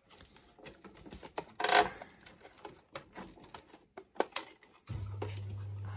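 Light clicks and knocks of small metal parts being handled and fitted, with one louder clatter near two seconds in. A steady low hum starts abruptly about five seconds in.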